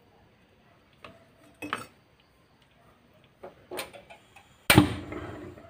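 Cookware and utensil clatter at a stove: a few light clicks and knocks, then one louder clank about three-quarters of the way through that fades over about a second.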